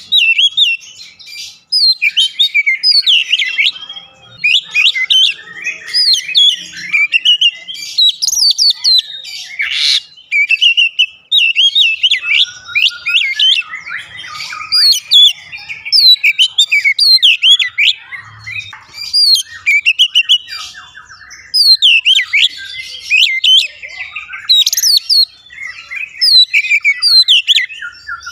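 Oriental magpie-robin (kacer) singing a fast, varied song of quick whistled phrases and chirps with only short pauses. A brief sharp click about ten seconds in.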